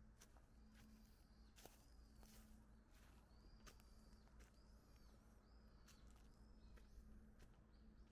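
Faint footsteps crunching on dry fallen leaves at a slow walking pace, about one step every three-quarters of a second, while a small bird gives short, arched chirps over and over.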